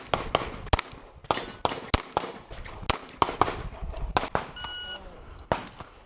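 Handgun shots fired in quick, uneven strings, a dozen or more sharp bangs with short pauses between them, as in a practical-pistol stage. An electronic beep lasting about half a second sounds a little past the middle.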